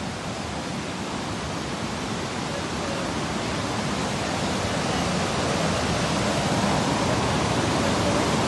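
Steady rush of water from a waterfall cascade, a constant hiss that grows slowly louder.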